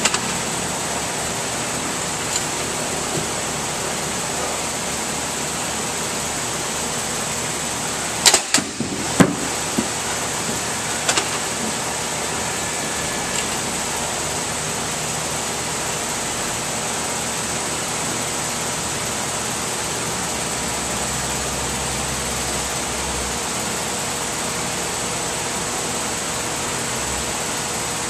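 Steady air-handling hiss with a thin high whine, and a cluster of sharp knocks about eight to nine seconds in as the cardboard box is handled and set on the metal arm of a drop tester.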